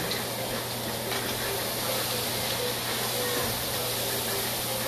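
Fajita meat sizzling steadily in a hot frying pan.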